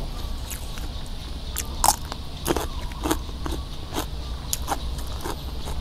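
Close-up chewing of crunchy food picked by hand from a spread of grilled fish and fresh vegetables: a string of short crunches, about two a second, the loudest about two seconds in, right at a clip-on microphone.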